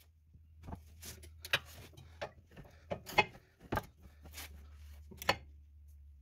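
Ratcheting spanner working a brake caliper bracket bolt tight: a string of sharp metal clicks, irregularly spaced, about a dozen in all.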